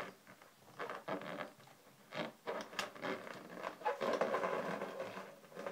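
Latex modelling balloons handled and twisted by hand: scattered small clicks and rubbing of the rubber, growing into a denser stretch of rubbing about four seconds in.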